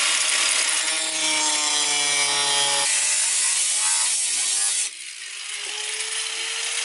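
Corded angle grinder cutting through a steel beam of a van's sheet-metal wall, the abrasive disc grinding on metal with a loud, steady whine. About five seconds in it drops to a quieter, thinner whine.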